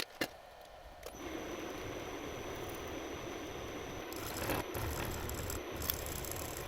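Two sharp clicks, then about a second in a small workshop machine motor starts and runs steadily with a high-pitched whine.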